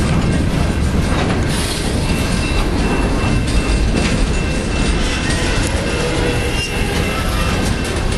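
Freight cars of a manifest train rolling past over a grade crossing: a steady loud rumble of steel wheels on rail with scattered clanks and clicks.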